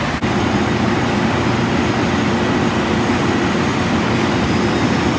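Loud, steady rushing roar of water pouring out of a fire-damaged house, with a steady low engine-like hum underneath, as from fire apparatus running.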